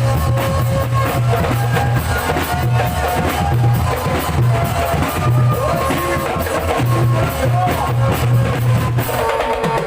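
Music with a steady, heavy drum beat under a sustained melody line.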